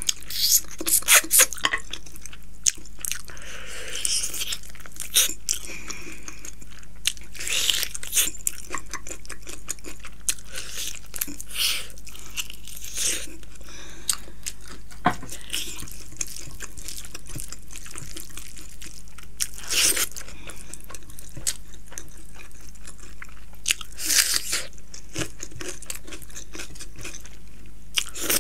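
Close-miked eating: wet chewing, lip smacks and scattered crunches as mouthfuls of food are taken by hand and chewed.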